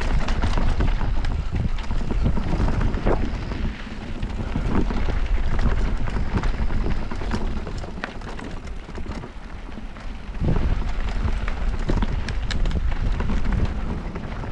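Wind rushing over the microphone while a mountain bike rolls fast down a dirt trail, with tyre noise and repeated knocks and rattles from the bike over bumps. The noise eases for a couple of seconds past the middle, then picks up again.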